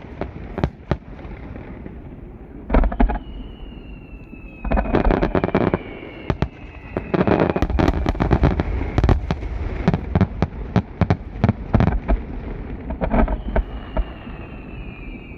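Aerial fireworks heard across a river: rapid volleys of bangs and crackling come in thick clusters, loudest around the middle. Twice a high whistle slides slowly down in pitch under the bursts.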